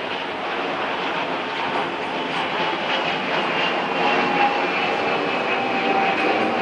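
Airbus A320-232 airliner passing low overhead on descent, its two IAE V2500 turbofan engines making a steady loud rushing jet noise with a high whine that sinks slightly in pitch near the end.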